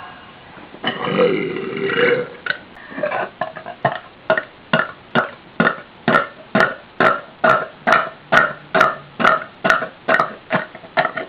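A woman burping: one longer drawn-out burp about a second in, then a rapid string of short burps, about two a second.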